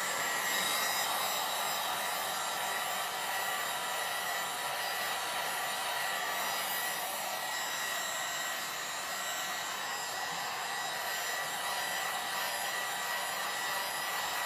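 Handheld hair dryer blowing steadily, with a thin steady whine in its rush of air, drying the decoupage glue on a wooden shelf.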